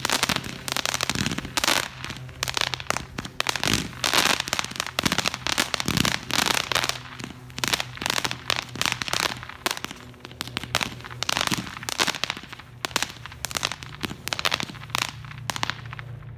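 Ironman Tropical Adventure 100-shot repeater cake firing: shot after shot in quick, irregular succession, with dense crackling from crackle-effect pearls and mines.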